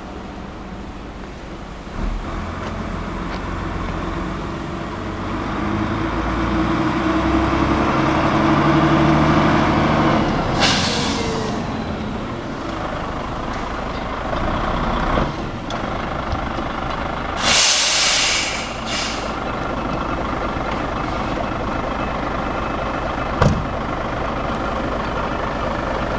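Nissan Diesel CK482 tractor unit's diesel engine running as the truck manoeuvres, growing louder several seconds in. Its air brakes let out a loud hiss twice, first about ten seconds in and again a few seconds later.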